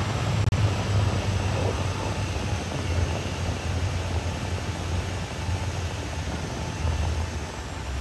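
CAT D6R XL crawler bulldozer's diesel engine running steadily as the machine tracks away, a low drone that fades slightly toward the end.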